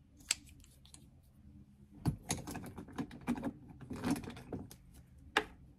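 Small hard makeup items being handled: a sharp click just after the start, a run of clicking and rattling from about two seconds in, and one more sharp click near the end.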